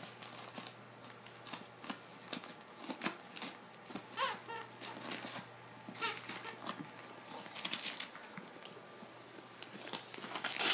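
Small dogs tearing and tugging at Christmas wrapping paper: scattered rustles and rips, with a few short squeaks mixed in, one of them rising about four seconds in.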